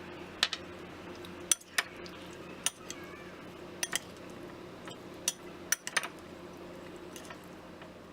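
A metal spoon clinking and tapping against a bowl in about ten irregular, sharp knocks as shrimp are stirred in oil. A faint steady hum runs underneath.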